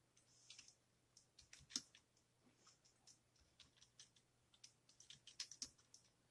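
Faint, irregular clicking of keys as someone types on a computer keyboard.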